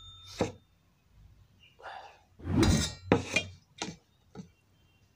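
A hand mixing rice and fish curry on a steel plate: a string of short rubbing and scraping sounds, the loudest about two and a half seconds in.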